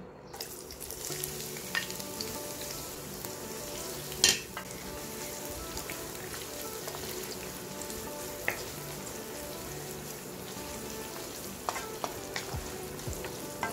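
Sliced onions sizzling in hot oil in a non-stick frying pan as they are stirred with a wooden spatula. A few sharp knocks cut through the steady frying, the loudest about four seconds in.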